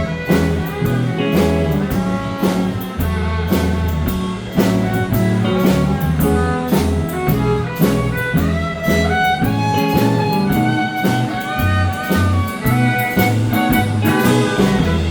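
A live country-blues band playing an instrumental break, with electric guitar, fiddle, bass and drums.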